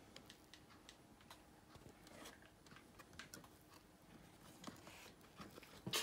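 Faint scattered taps and rustles of hands handling a cardboard box and its flaps, with one sharper knock near the end.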